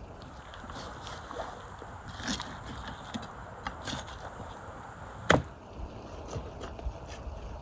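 A raw goose being cut apart with a large kitchen knife on a wooden board: soft cutting and handling noises with scattered small clicks, and one sharp knock a little after five seconds in.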